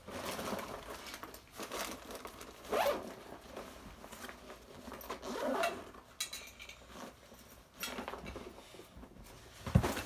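Zipper of a JanSport backpack being worked, with fabric rustling as things are handled and packed, in a series of short scratchy strokes. A single sharp thump near the end, the loudest sound, as the bag is swung onto a shoulder.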